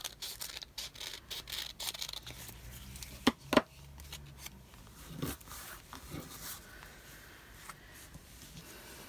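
Scissors cutting paper: a run of quick snips over the first couple of seconds, then two loud sharp clicks just after three seconds, followed by softer paper-handling rustles.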